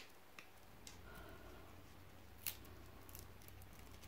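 Near silence with a few faint clicks and scrapes of fingers on a rolled-up diamond painting canvas as it is turned over in the hands. The slightly louder click comes about two and a half seconds in.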